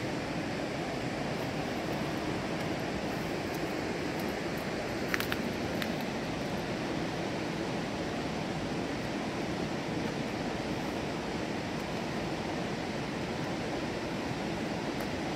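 Steady rush of a fast-flowing river, an even noise without change, with two short clicks about five seconds in.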